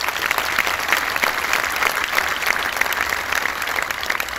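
Audience applauding: many hands clapping together in a dense, steady stream.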